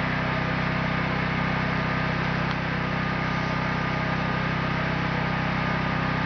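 Generator engine running steadily, giving a constant low hum.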